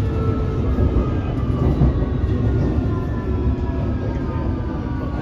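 London Underground Metropolitan line train running, heard from inside the carriage: a steady low rumble of wheels on track, with the traction motors' whine slowly falling in pitch as the train slows.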